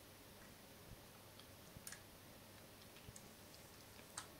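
Near silence with a few faint, scattered clicks from a computer mouse as a web page is clicked and scrolled.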